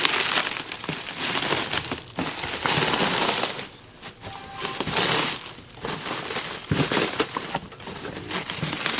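Crinkling and rustling of packing material being handled and crumpled, in irregular bursts with a short lull midway.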